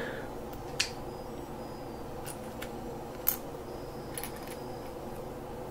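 Plastic Lego pieces being handled and pressed together: a few short, sharp clicks, the loudest about a second in and again about three seconds in, over a steady low hum.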